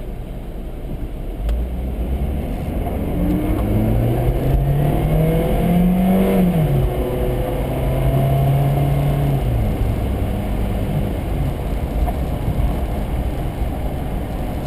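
Car engine speeding up as the car accelerates. Its pitch rises for a few seconds, drops about six seconds in as the transmission shifts up, then holds steady before easing off. A steady rumble of tyres on the road runs under it, heard inside the car's cabin.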